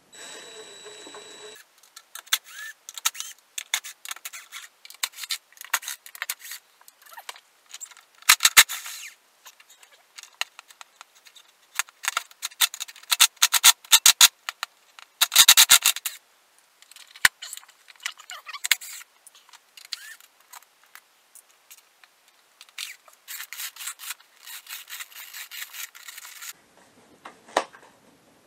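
Irregular clicks, scrapes and rattles of hand tools and small parts being handled on a workbench while a Veteran Sherman electric unicycle is taken apart. There are louder bursts of scraping about a third of the way through and again just past halfway.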